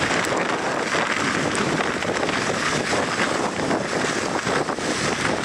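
29er mountain bike rolling downhill over wet hail-covered, rocky ground: a steady rush of wind on the microphone mixed with tyre noise and the bike rattling.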